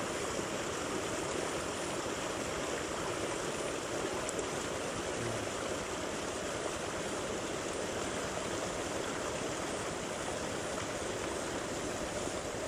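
Steady rushing noise like running water, even throughout, with no distinct events.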